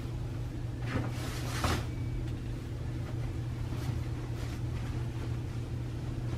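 Pillows and a duvet rustling as they are handled, briefly about a second in and again just before two seconds, over the steady low hum of a cruise ship cabin.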